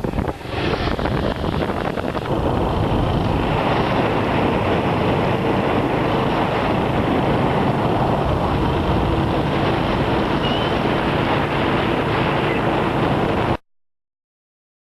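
Strong wind buffeting the microphone: a loud, steady rush of noise that cuts off suddenly near the end.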